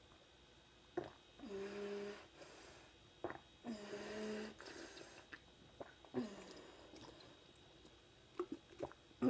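Gulping water from a small plastic water bottle: a few short swallows, and twice a steady hummed breath through the nose lasting under a second.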